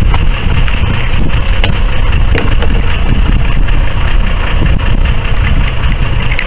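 Fishing boat's engine running steadily with a heavy low rumble, and a few faint clicks from handling the catch on deck.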